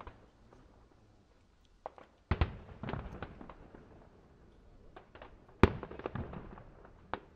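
Aerial fireworks shells bursting in the distance: a string of separate bangs, each with a short echoing tail, coming in two clusters. The loudest single bang falls a little past the middle.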